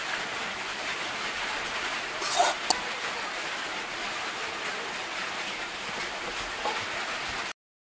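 Steady, even hiss of rain, with a couple of light clicks about two and a half seconds in; it cuts off abruptly near the end.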